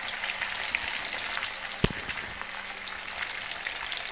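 Rohu fish pieces deep-frying in hot oil in a kadhai: a steady sizzle with fine crackling spatters, and one sharp tap a little under two seconds in.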